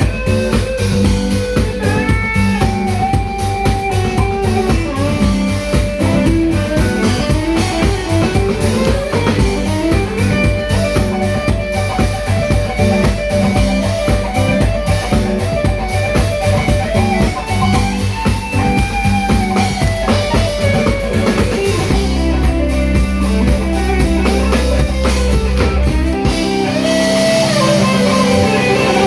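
Live band playing a song with guitar and drum kit over a steady beat. About three quarters through, the beat drops out under held bass notes, and near the end a sustained chord rings with a wash of cymbal.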